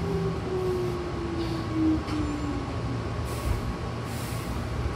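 Hankyu Takarazuka Line electric train braking into a station, heard from inside the car: a motor whine falls steadily in pitch and fades out about halfway, over the rumble of the running gear. Two short hisses come near the end.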